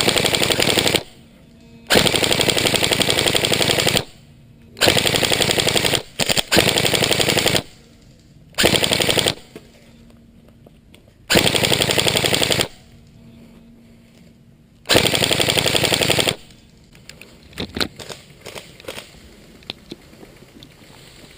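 Electric airsoft gun (AEG) firing on full auto in repeated bursts of about a second each, with its motor and gearbox whirring. There are roughly seven bursts over the first two thirds, then only scattered light clicks and knocks near the end.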